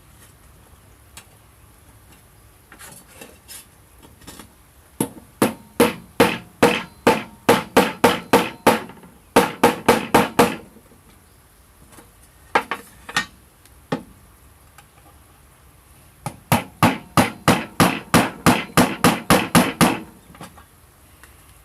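Rapid series of sharp striking blows, like a tool hammering, about three a second, in three runs separated by short pauses.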